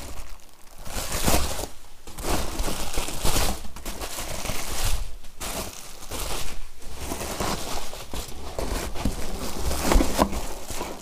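Clear plastic packing wrap crinkling and rustling in irregular bursts as it is pulled and handled out of a cardboard box.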